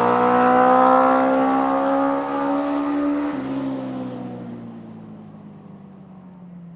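Honda CB650 café racer's SOHC inline-four, with a four-into-four exhaust, accelerating away after passing by. The pitch climbs, drops once with an upshift about three seconds in, and the sound fades into the distance.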